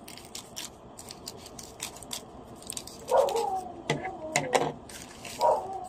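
Parcel packaging crinkling and clicking as it is handled and opened. In the second half, a pet gives three high cries, each falling in pitch.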